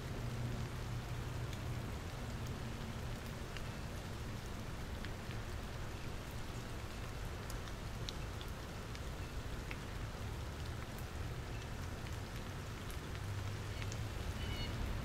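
Steady rain falling, with scattered individual drops and drips. A low rumble sits under it at the start and again near the end, and a few short high chirps come near the end.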